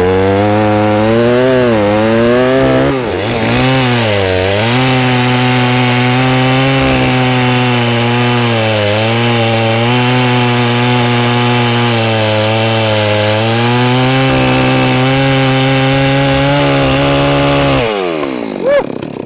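Holzfforma G660 two-stroke chainsaw with a 36-inch bar running at full throttle while cutting through a log; the engine pitch sags and recovers a few times in the first five seconds as the chain bites, then holds steady. Near the end the throttle is released and the engine falls away toward idle.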